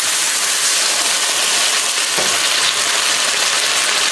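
Water boiling and sizzling hard in a very hot wok of stir-fried vegetables on high heat: a steady, loud hiss.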